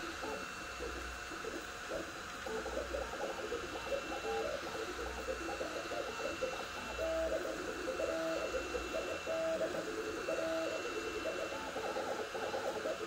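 Two Trees Sapphire Plus 3D printer printing at 130 mm/s: its stepper motors whine in short pitched notes that jump from one pitch to the next with each move, over a steady whir of cooling fans.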